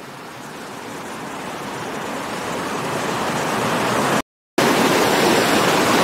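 Rushing water of a shallow rocky stream tumbling over boulders in small rapids, growing louder over the first four seconds. The sound cuts out completely for a moment just after four seconds, then the water noise carries on steadily.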